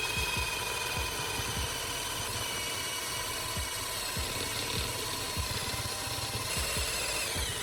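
Power drill spinning a homemade round hole cutter against wood: a steady motor whine over uneven low rumbling.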